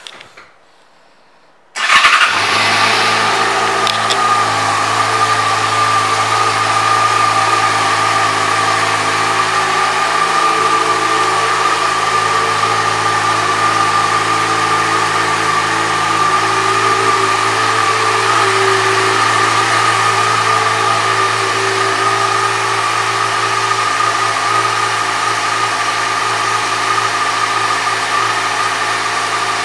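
2012 Yamaha FZ6R's 600 cc inline-four starting with a brief crank about two seconds in, then idling steadily.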